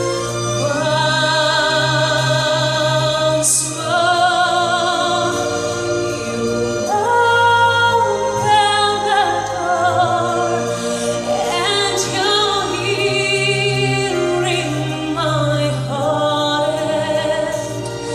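Music with singing: long sung notes with vibrato over a steady, sustained low accompaniment.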